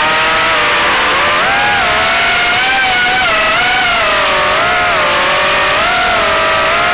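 Motors of an HX115 FPV quadcopter in flight: a steady multi-toned electric whine whose pitch keeps rising and falling as the throttle changes.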